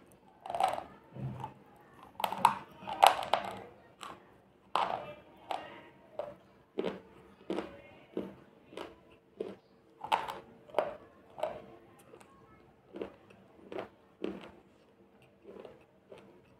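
Slate pencil chips being crunched and chewed close to the microphone: a sharp crunch every half second to second, fainter and more spaced out toward the end as the pieces break down.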